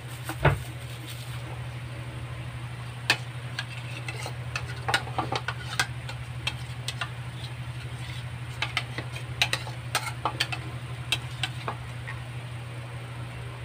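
Thick chicken curry with coconut milk simmering in a wok, the sauce bubbling with scattered soft pops over a steady low hum. A single knock comes about half a second in.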